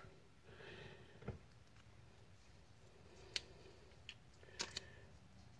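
Near silence with a few faint clicks and taps of a smartphone and its box being handled on a table, the sharpest a little past the middle.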